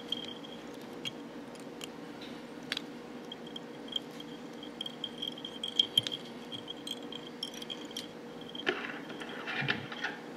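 Faint clicks and light handling sounds of tying thread being wrapped onto a lead-wrapped fly hook held in a vise, with a short scratchy rustle near the end. A faint steady high whine and a low hum run underneath.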